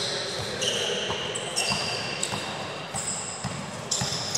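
Sneakers squeaking on an indoor court floor, several high squeaks lasting up to about a second each, over the low thuds of a basketball bouncing and running feet.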